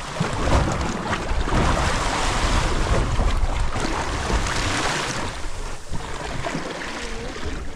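Sea water splashing and sloshing against the stern of a fishing boat, loudest in the first five seconds, with wind buffeting the microphone.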